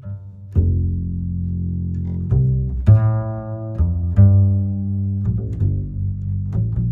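Background music: a low string line of held and plucked bass notes, changing every second or so, with quicker notes near the end.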